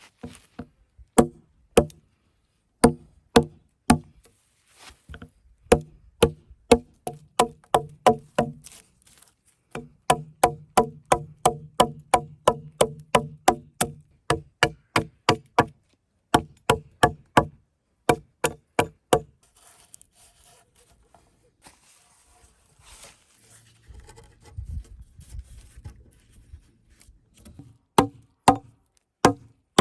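Repeated blows of a hand tool striking wood, in fast, regular runs of about two to three knocks a second with short pauses between runs. Each knock has a brief hollow ring, and the blows stop for several seconds past the middle before picking up again near the end.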